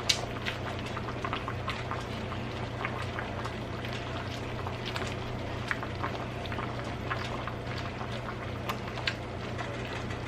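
Pot of seafood-boil liquid bubbling at a boil, with many small irregular pops and a steady low hum underneath.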